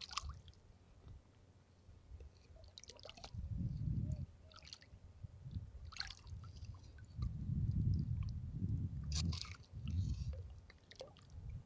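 Machete blade digging into wet sand and seabed in shallow seawater: low squelching and sloshing in a few spells, with several short sharp taps.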